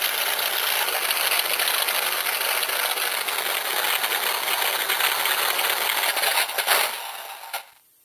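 RC sound generator module playing its Pratt & Whitney Double Wasp radial aircraft engine sound through a small speaker, a steady thin, noisy engine sound that dies away near the end.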